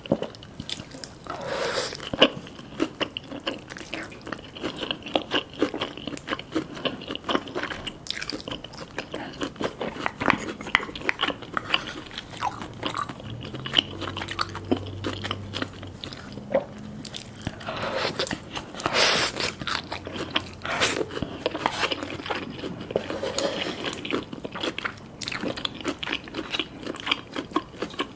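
Eating sounds up close: crunchy bites and chewing, one after another, with a few louder crunches along the way.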